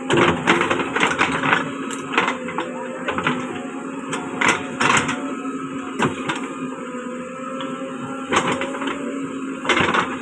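JCB backhoe loader working, its engine running steadily with a held whine, while a string of irregular sharp knocks and cracks comes from the bucket digging at the ground and roots.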